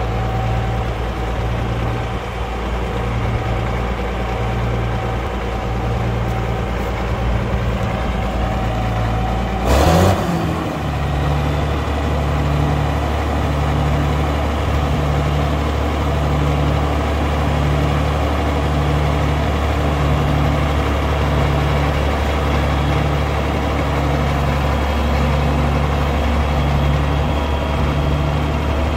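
Steiger four-wheel-drive tractor's diesel engine idling. About ten seconds in there is a brief loud burst whose pitch falls, and the idle then settles into a lower, steady note with a slow regular throb.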